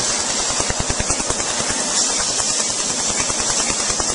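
Tattoo-removal laser firing in a rapid pulse train: sharp, evenly spaced snaps, roughly ten a second, as each pulse hits the tattoo ink, over a steady hiss.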